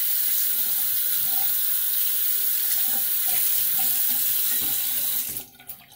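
Bathroom sink tap running, water splashing steadily into the basin, then shut off suddenly about five seconds in.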